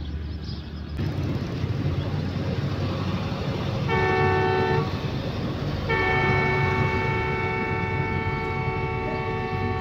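Pakistan Railways ZCU-30 diesel-electric locomotive sounding its multi-tone horn for departure: one short blast about four seconds in, then a long held blast from about six seconds in. The locomotive's low engine rumble runs underneath.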